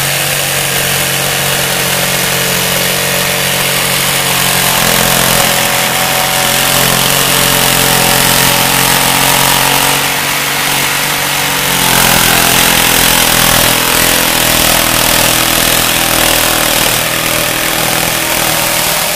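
Jigsaw with a LENOX bi-metal blade cutting an S-curve through metal plate. The motor runs with a steady whine over the rasp of the blade in the metal, and its pitch steps twice, about five and about twelve seconds in. The blade handles the curves and shows no signs of wear.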